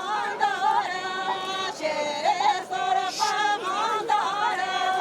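Voices singing together in a lively crowd, with chatter mixed in.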